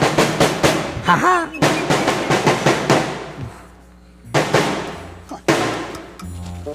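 Zabumba bass drum beaten in a quick, rapid run with a short laugh over it, then two single strikes, each left to ring on.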